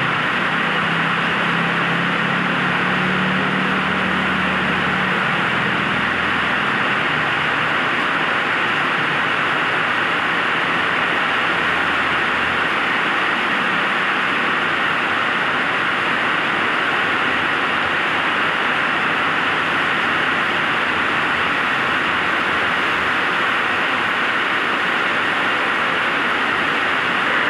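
Heavy rain pouring onto a wet road, a steady dense hiss. A motorbike's engine hums low as it passes during the first few seconds.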